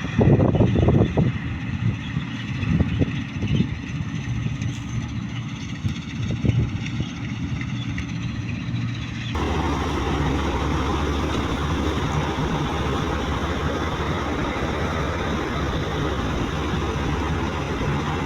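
Combine harvester engine running, with knocks and rattles in the first few seconds. About nine seconds in the sound changes abruptly to a steadier, louder, hissing machine running.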